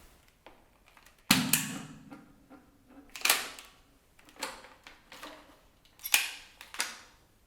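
Hard plastic parts of a Dyson V6 cordless vacuum being handled during a blockage check: six sharp clicks and clacks. The first, about a second in, is the loudest and has a brief low ring after it.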